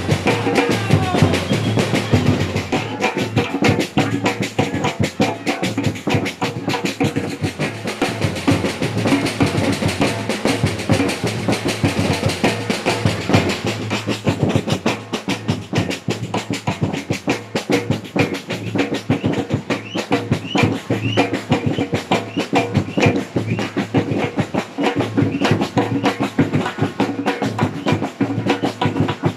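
Samba batucada: a bateria percussion ensemble drumming a dense, fast, steady rhythm.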